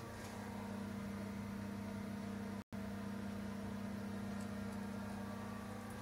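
A steady low hum, cutting out completely for an instant a little before halfway through.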